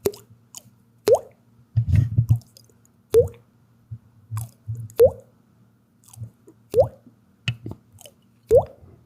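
Water-drip plinks like a leaking faucet: six single drops that each rise quickly in pitch, about every two seconds, with soft low thumps between them.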